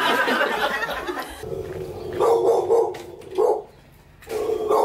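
A dog whining in long, drawn-out cries with short breaks between them, after a moment of laughter and voices.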